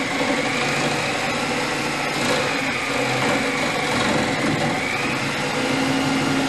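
Reciprocating saw running steadily as its blade cuts into a wooden framing beam, its motor whine wavering slightly in pitch.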